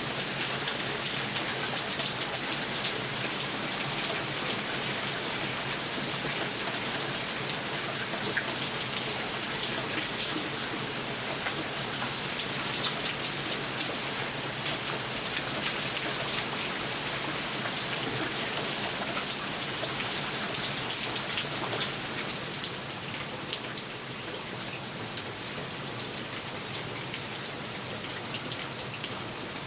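Heavy rain pouring down, a steady hiss of countless drops striking surfaces. It eases a little about two-thirds of the way through.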